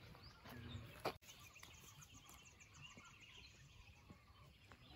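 Faint outdoor forest ambience with distant bird calls, including a quick high-pitched trill of rapidly repeated notes in the first half. A single sharp knock about a second in is the loudest sound.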